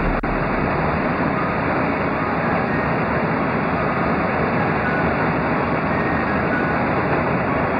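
Steady rushing noise of an airliner cabin in flight, engines and airflow, with a single click a fraction of a second in.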